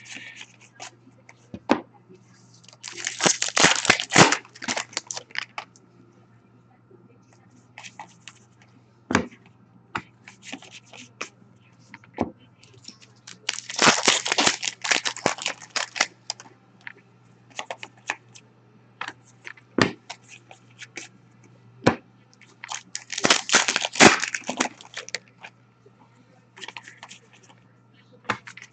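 Foil hockey card pack wrappers torn open and crinkled three times, about ten seconds apart, with light clicks and taps of cards being handled in between.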